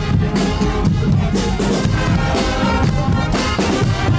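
Loud party music with drums, playing without a break.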